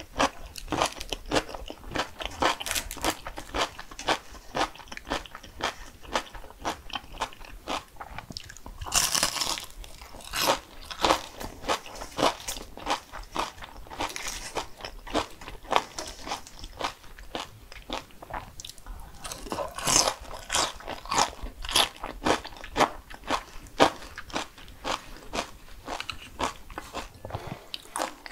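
Close-miked eating sounds: crisp food bitten and chewed with a rapid run of sharp crunches, a few fuller, denser stretches of crunching along the way.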